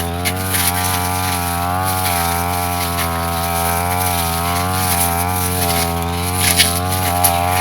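Brush cutter engine running steadily while cutting grass, its pitch wavering slightly with the load, with a few sharp ticks near the end.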